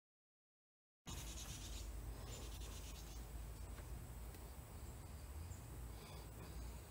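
Dead silence for about a second, then faint room noise: a low steady hum with light rustling and small clicks from a signer's hands and clothing moving.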